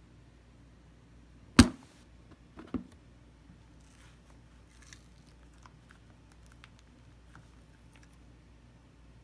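Slime being handled: one sharp snap about a second and a half in, a softer one about a second later, then faint scattered clicks.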